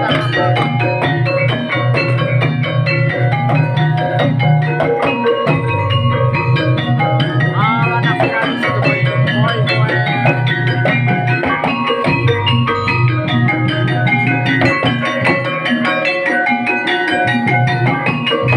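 Banyumasan gamelan music for an ebeg dance: a dense stream of quick mallet-struck metallophone or xylophone notes over a steady low drone that drops out briefly a few times.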